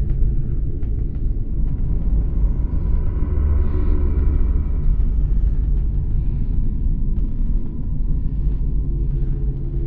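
Haunted-house atmosphere sound effect: a steady, deep rumbling drone, with a faint higher tone swelling and fading in the middle.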